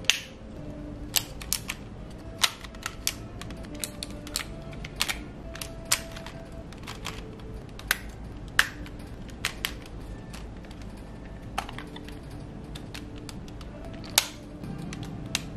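Hard plastic toy-robot parts clicking and snapping as DX ZenKaijuOh and Zenkaijuran pieces are folded and locked together in a combination, irregular clicks with a few sharper snaps, over faint background music.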